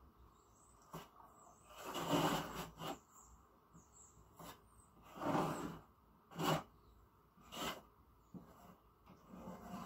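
Joint compound being spread and scraped into gaps with a putty knife: a few short, irregular scrapes, the loudest about two seconds in and again around five to six and a half seconds.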